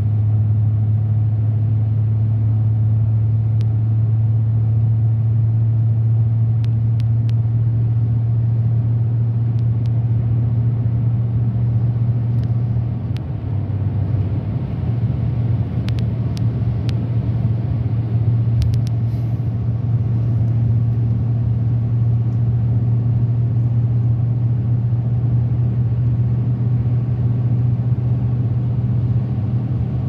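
Steady low drone of a car cabin at highway speed, engine and tyre noise on a wet road, with a few faint clicks.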